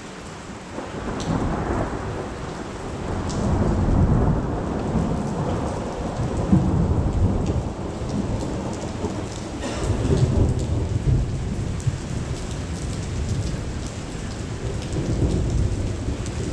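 Heavy rain coming down hard, a steady pouring hiss, with deep low rumbles that swell and fade about three times.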